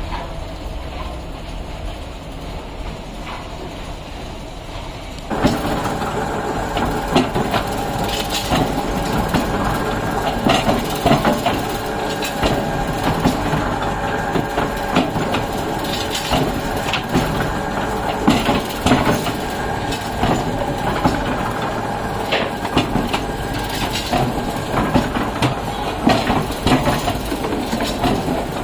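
Clay roof-tile press machinery running, with a steady drone and constant irregular clanking and knocking of the moving moulds. It becomes suddenly louder and busier about five seconds in.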